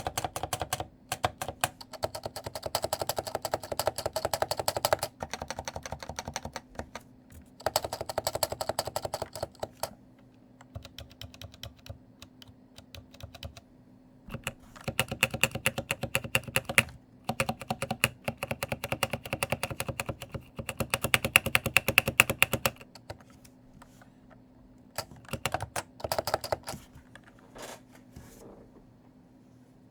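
Typing on a stock Cooler Master NovaTouch TKL keyboard with Topre electrostatic capacitive switches, in fast runs of keystrokes separated by short pauses, thinning to a few single key presses near the end. The light Cherry-compatible keycaps give a clattery, rattling sound.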